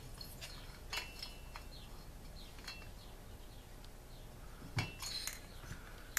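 Light metallic clicks and clinks as a Stihl MS 290 chainsaw's cylinder and piston are handled and worked together, with a dull knock about five seconds in as the cylinder is set down on the table.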